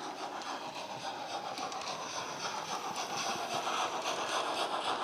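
Hornby 'Hush Hush' model steam locomotive running with a DCC sound decoder playing steam exhaust beats through its onboard speaker, mixed with the wheels rolling on the track. It grows a little louder as the engine draws near.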